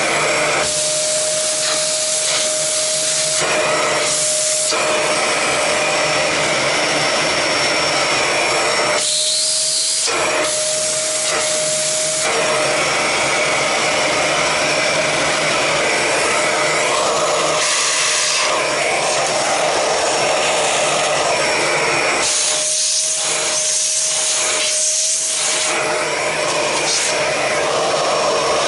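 Vacuum cleaner running steadily while its nozzle sucks dust out of a Roomba robot vacuum. A whistling note in the airflow comes and goes several times as the nozzle meets and leaves the surfaces.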